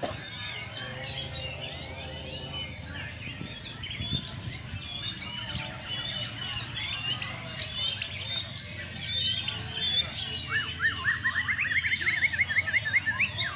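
Several caged songbirds, white-rumped shamas among them, singing and chirping over one another. From about ten seconds in, one bird repeats a quick rising note about five times a second.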